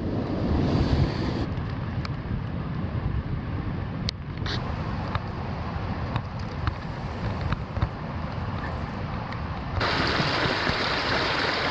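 Outdoor bush ambience: wind rumbling and buffeting on the microphone, with a few light clicks. About ten seconds in it gives way to the louder, steady rushing hiss of a small creek.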